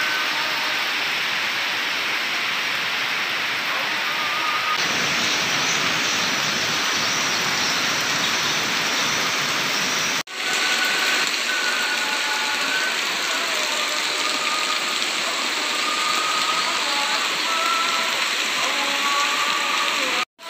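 Heavy tropical rain pouring steadily onto roofs, ground and a flooded street. The sound drops out briefly twice, about halfway through and near the end.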